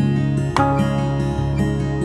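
Background music: an acoustic guitar piece with plucked notes that ring on.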